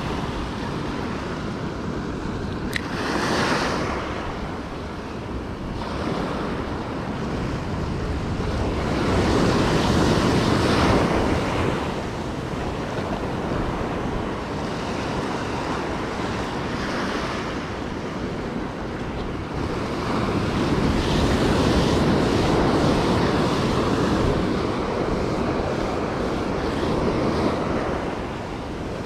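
Small ocean waves breaking and washing up a sandy beach, a steady rush that swells and fades, loudest about a third and two thirds of the way through, with wind buffeting the microphone.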